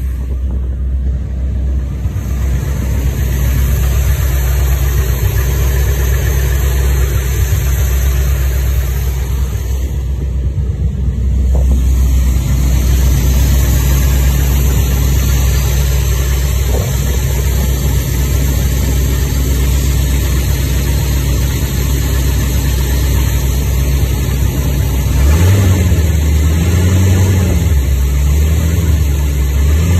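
Chevy 350 small-block V8 idling with a valve cover off and the rocker arms exposed, running with the knock/tap that the owner suspects may be a worn lifter or cam, poor oil flow, or a fuel pump tick. About 25 seconds in, the throttle is blipped several times and the engine note rises and falls.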